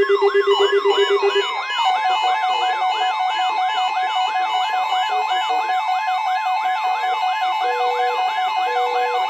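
Emergency alert tones over weather radio receivers for a tornado drill: a warbling siren-like tone sweeps up and down about three times a second over a steady alert tone, which switches to a different steady tone about a second and a half in. A few short beeps come in near the end.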